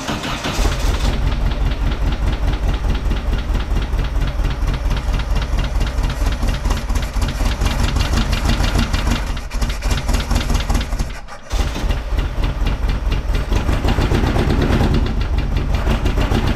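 Air-cooled 1600cc VW flat-four engine running just after being fired up, with the plug wires for cylinders 1 and 2 swapped, so it is not firing properly on all four cylinders. The sound breaks off briefly about eleven seconds in.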